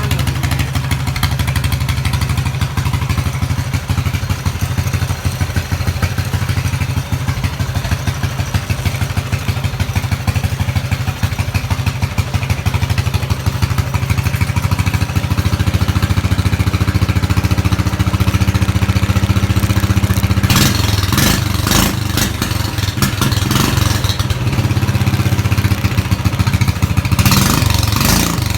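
Mini bike's 9 horsepower single-cylinder engine running, extremely loud through an exhaust that needs replacing, steady at first and picking up a little partway through, with two louder, rougher stretches about two-thirds of the way in and near the end.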